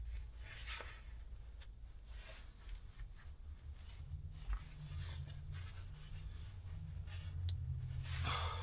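Faint, scattered clicks and scrapes of hand work with tools and parts, over a low steady hum. One sharp click comes near the end.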